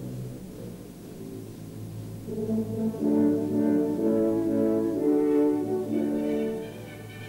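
Orchestral background music: brass instruments swell into loud held chords about two seconds in, changing chord a few times, then fall back near the end.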